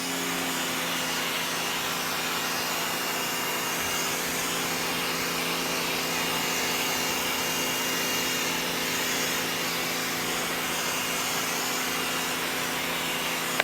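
Bosch Aquatak 130 electric pressure washer running under load while spraying soapy water through its foam can. A steady motor-and-pump hum sits under the hiss of the spray. It starts and stops abruptly.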